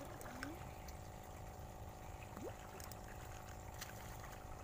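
Pond water splashing and sloshing as hooked and feeding fish thrash at the surface, over a steady low hum.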